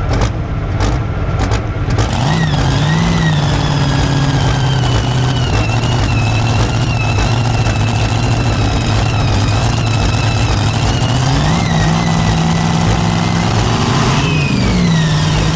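Pro stock pulling tractor's turbocharged diesel engine running at the line, blipped up a little about two and a half seconds in, again near eleven seconds and near the end. A high whine rides over the engine note and falls away near the end.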